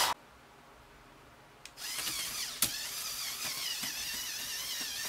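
Lego Technic vehicle's electric motors and gears whining as it drives up a steep ramp, the pitch wavering, with one sharp click partway. It starts after about a second and a half of near silence.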